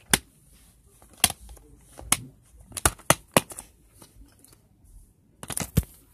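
Plastic DVD cases knocking and clicking as they are handled, with about eight sharp clicks at irregular intervals, two close together near the end, and faint rustling between them.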